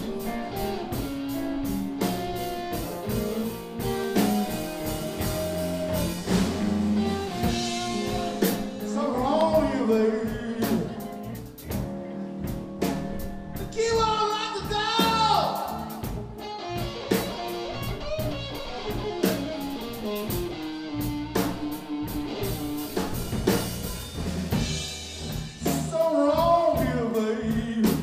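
A live blues band playing a slow blues: electric guitars, bass and a drum kit, with a wavering lead line that bends up and down in pitch at several points.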